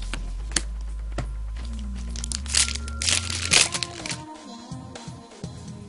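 Background music with the crinkling and crackling of a foil booster-pack wrapper being handled: a loud flurry of crackles starting about two and a half seconds in and lasting about a second.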